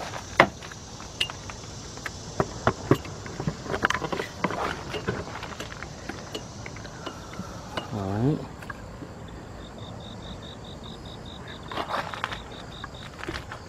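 Camera being handled and repositioned: scattered knocks and clicks of handling, with a short murmur from a man about eight seconds in. Over the last few seconds a high, fast ticking chirp runs at about five ticks a second.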